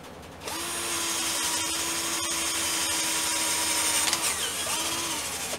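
Mondial 21 V cordless drill/driver in its low-speed setting boring an 8 mm wood bit into a wooden block: a steady motor whine with the hiss of the bit cutting for about three and a half seconds, then two short squeezes of the trigger near the end.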